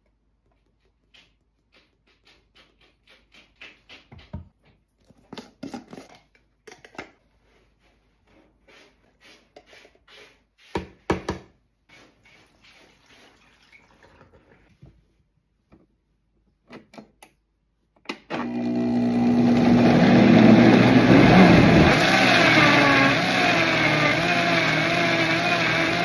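Scattered light clicks and knocks as ingredients and water go into a blender jar. From about two-thirds of the way in, a high-powered countertop blender runs loudly and steadily, grinding chunks of vegetables, chillies and water into a thick purée. Its pitch wavers as the load shifts.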